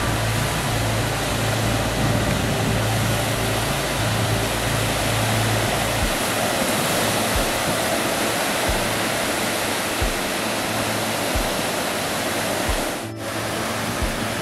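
Sea surf breaking and washing onto a sandy beach: a steady rushing noise, with a low rumble underneath during the first half.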